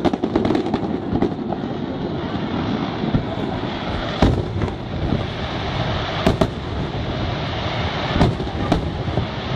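Aerial fireworks display: shells bursting over a continuous low rumble. Sharp bangs stand out about four and six seconds in, with two more close together near the end.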